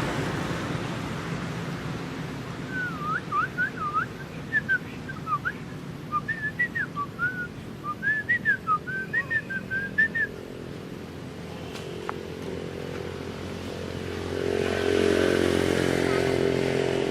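A run of many short, quick whistled notes, each sliding up or down in pitch, from about two to ten seconds in. A low steady hum swells near the end.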